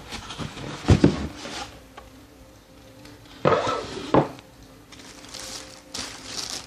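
Cardboard box and packaging being handled: two sharp knocks about a second in, a scraping rustle ending in another knock around three and a half seconds in, and a lighter rustle near the end.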